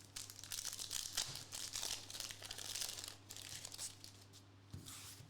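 Crinkling and tearing of a foil trading-card pack wrapper being ripped open and handled, busiest for the first three seconds, then easing off, with one more short crinkle near the end.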